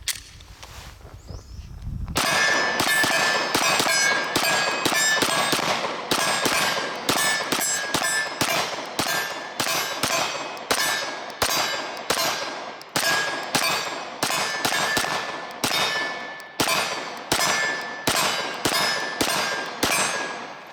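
Glock 19X 9mm pistol fitted with a DPM recoil-reduction guide rod, fired in a long steady string from a 33-round magazine. The shots start about two seconds in and come at about two a second, with a ringing tone behind many of them.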